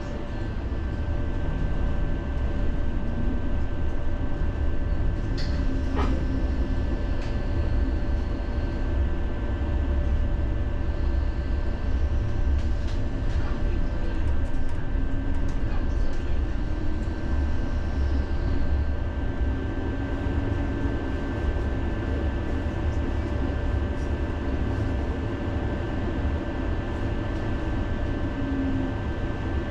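City tram running on its rails, heard from on board: a steady low rumble with a constant electric whine, and a few sharp clicks and squeals from the wheels and track.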